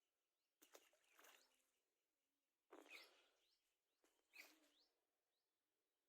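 Faint bird chirps over a quiet outdoor background, with three brief sounds, each fading away over about a second.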